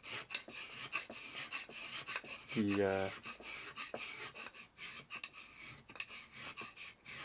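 Iwasaki fine float (a Japanese carving file) being pushed in repeated short strokes across the wooden blade bed inside a kanna's mortise, scraping off fine shavings to smooth the bed flat.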